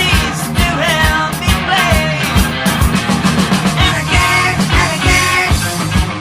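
Heavy metal band recording: a full rock band plays, with drums keeping an even beat under bass and electric guitar.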